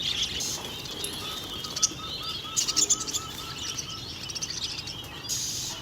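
Many caged birds chirping and twittering in quick high notes. Through the middle, one bird repeats a short even note about four times a second. A brief hiss sounds near the end.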